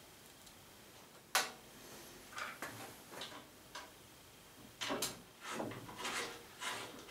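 Metal fence rail being fitted to the front edge of a table saw's table: one sharp metallic knock about a second in, then two runs of short clinks and scrapes as the rail's mounting bolts are worked and snugged down by hand.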